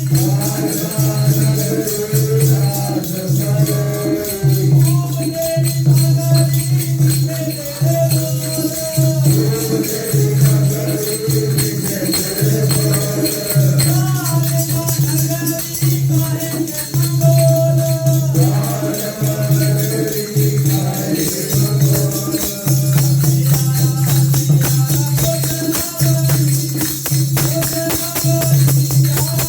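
Devotional hymn singing (Sikh kirtan of Gurbani) over a steady, pulsing low drone, with jingling hand percussion keeping a quick rhythm throughout.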